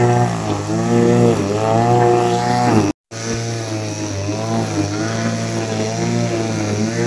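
An engine running steadily, its pitch rising and falling gently about once a second. The sound cuts out briefly about three seconds in and then resumes.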